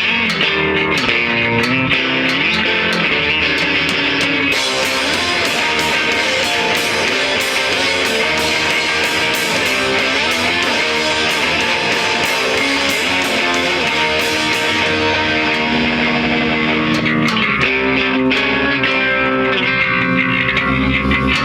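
Rock band playing live, with electric guitar and bass guitar to the fore. The sound gets brighter and fuller about four seconds in and eases back after about fifteen seconds.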